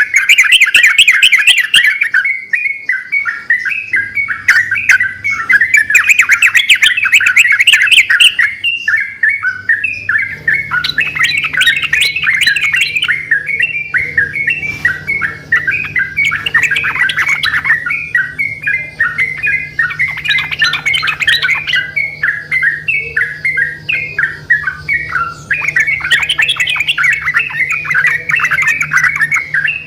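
Yellow-vented bulbuls (trucukan) singing loudly and vigorously in rapid chattering phrases, several birds calling back and forth over one another without a break.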